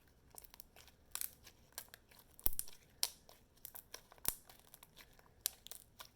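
Glue-based glossy slime being kneaded and stretched by hand, giving a string of irregular sticky clicks and crackles, the sharpest about two and a half seconds in.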